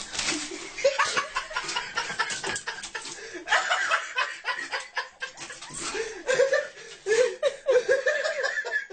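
A person laughing in short repeated bursts, loudest near the end, over many quick knocks and clatters.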